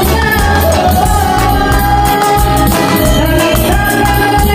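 A woman singing into a microphone over a backing track with a heavy bass beat, amplified through a party speaker.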